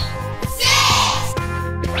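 Children's background music with steady sustained notes. A short burst of hiss about half a second in and a quick rising glide near the end are added sound effects.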